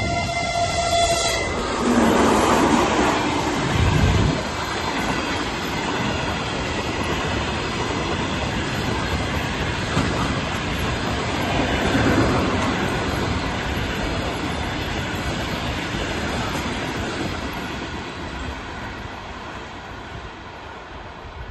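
EP2K electric locomotive's horn sounding and cutting off about a second in, followed by the locomotive and its passenger coaches rolling past with clattering wheels, fading away near the end.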